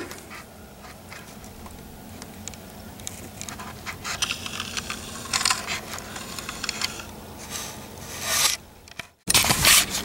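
Irregular scraping and rustling noises, with louder bursts about four, five and eight and a half seconds in, and a louder rush of noise just after a brief dropout near the end.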